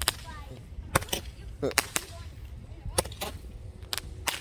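Small firecrackers going off one after another: about half a dozen sharp pops at uneven intervals, roughly one a second.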